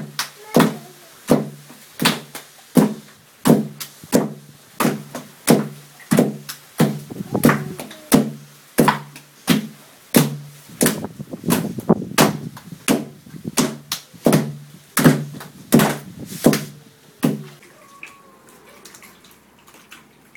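Stone poi pounders striking cooked taro (kalo) on wooden poi boards, a steady dull thud with a low ring about every three-quarters of a second. The pounding stops near the end, leaving only quiet handling of the taro paste.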